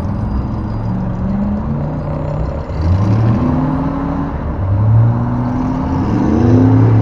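Off-road vehicle engines revving under load to drag a stuck 4x4 through deep mud, the pitch climbing several times over a steady engine drone.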